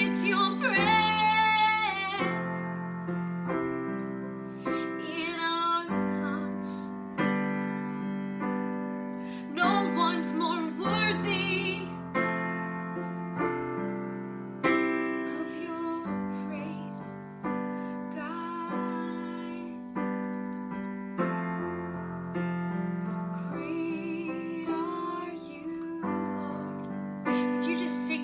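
Slow piano chords, each struck about every two seconds and left to ring and fade, as an accompaniment to a worship song. A woman's voice holds a wavering note in places, with no words.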